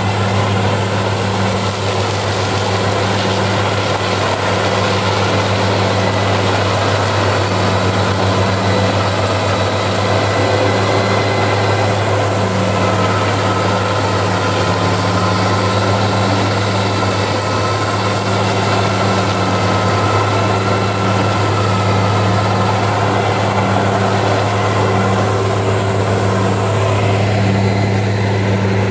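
4x4 tractor's engine running steadily under load while driving a side-mounted rotary mower through tall grass, a constant low drone with no changes in pitch.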